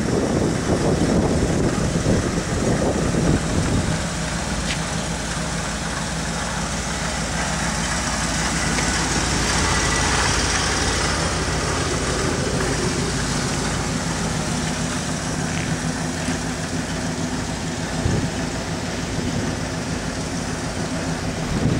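Engine idling steadily, with wind buffeting the microphone, heaviest in the first few seconds.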